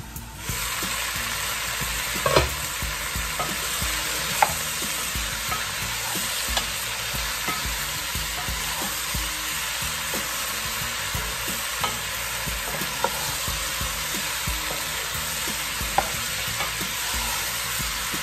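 Diced potatoes and kabocha squash sizzling in a pot while being stirred with a wooden spoon, with a few sharp knocks. The sizzle comes up suddenly about half a second in as the lid comes off.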